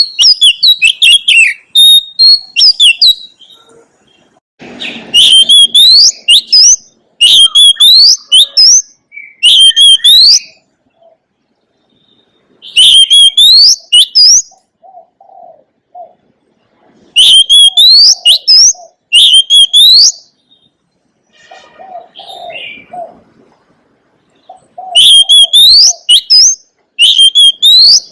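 Oriental magpie-robin singing: loud phrases of quick, rising whistled notes, each phrase a few seconds long with pauses between, and softer, lower short notes in some of the gaps.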